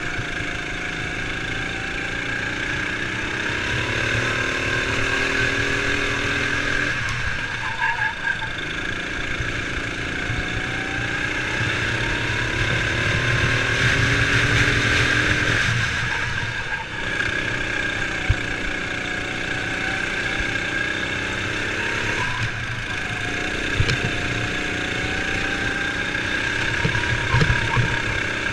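Sodi RX7 rental kart's single-cylinder four-stroke engine heard from on board during a race. Its revs climb steadily along each straight, then drop sharply as the driver lifts for the corners, about three times.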